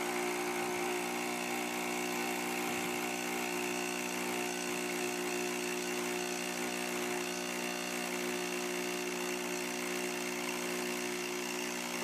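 Nespresso Lattissima+ capsule machine's vibratory pump running with a steady hum as it brews the espresso for a cappuccino. It stops suddenly at the end, when the shot is done.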